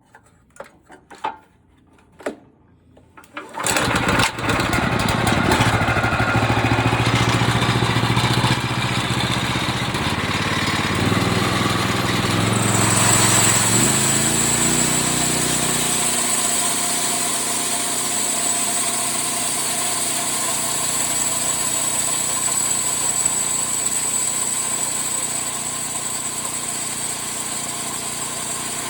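Small homemade bandsaw mill's motor starting and running, after a few light clicks. It starts about three and a half seconds in, its pitch shifts for several seconds before settling, and a high steady whine joins around twelve seconds in.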